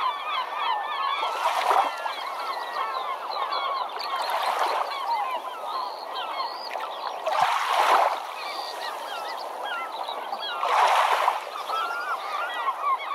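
Seaside sound: many birds calling at once in a dense stream of short chirps, with waves washing in and surging about every three seconds.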